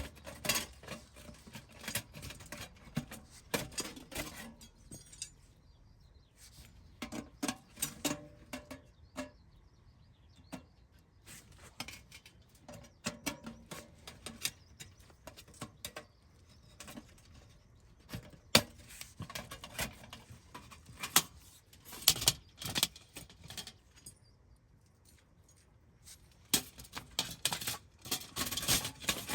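Irregular small clicks, clinks and knocks of hard objects being handled, coming in clusters with short quiet gaps between.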